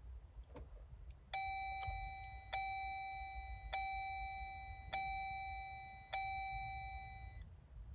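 Jeep JL Wrangler's dash warning chime sounding five times, about one every 1.2 seconds, each a clear tone that fades out, during a Tazer-module reboot of the Jeep's electronics.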